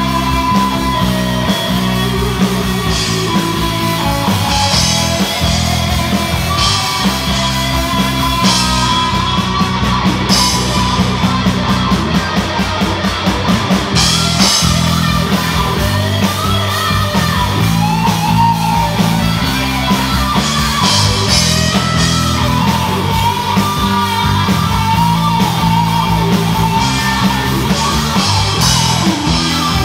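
Live rock band playing loud, with electric guitar to the fore.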